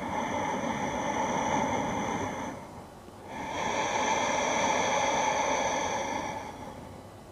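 A person breathing slowly and deeply close to the microphone: two long breaths of about three seconds each, with a short pause between them.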